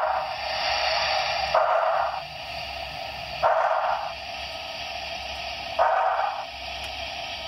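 Sound decoder of an HO scale model steam locomotive playing through its small onboard speaker: a steady hiss with a short puff of exhaust about every two seconds.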